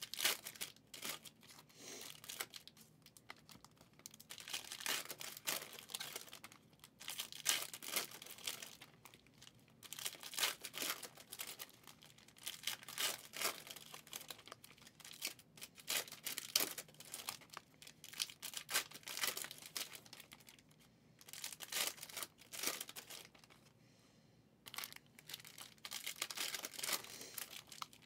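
Plastic wrappers of 2023 Prizm football card packs tearing and crinkling in uneven bursts as packs are ripped open and the cards handled, with a couple of short lulls about two-thirds of the way through.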